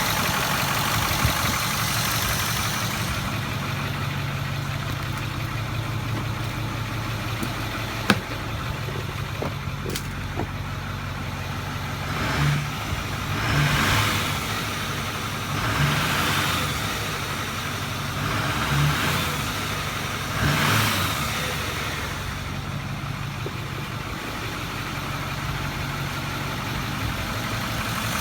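Ford 6.4L Powerstroke V8 diesel idling steadily with a valve cover off and the rocker arms exposed. The engine sound swells briefly several times in the middle, and there is one sharp click about eight seconds in. The owner is chasing a tapping knock in the valve train.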